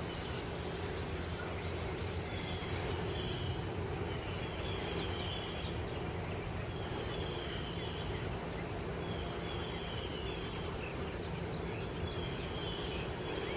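Steady backyard background noise with a low drone underneath, and a short high chirp repeating about every two seconds.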